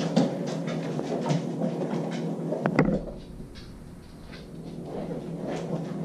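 Light clicks, knocks and shuffling of dogs and a person moving about a kitchen floor, with one sharp click about three seconds in, after which it goes quieter.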